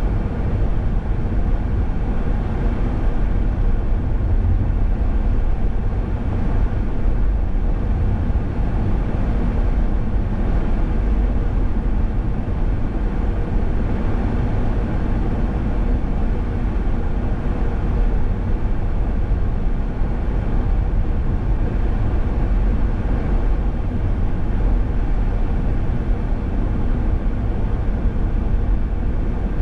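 Car driving along a highway at a steady pace: a steady low rumble of road and engine noise that keeps an even level throughout.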